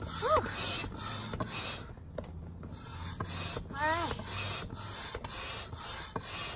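Manual air pump worked in quick strokes, about two a second, each stroke a rasping rush of air, as an inflatable pool is blown up. Two short squeaks stand out, one right at the start and one about four seconds in.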